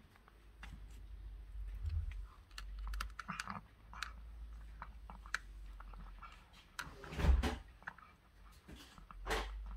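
Calico cat crunching dry kibble from a plastic bowl: a run of quick, irregular crisp clicks. A few dull bumps come in between, the loudest about seven seconds in.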